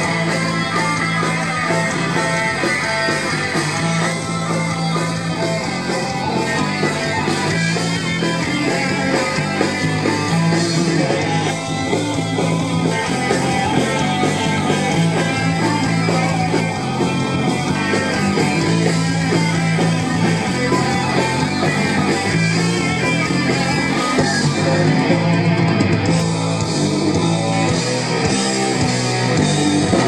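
Heavy metal band playing live at full volume: distorted electric guitars, bass and drums driving a repeating riff, heard through the stage PA from the audience.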